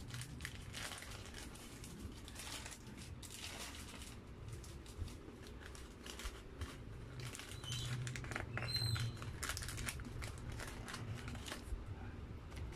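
Paper burger wrapper crinkling and rustling as it is unfolded by hand, a string of crackles.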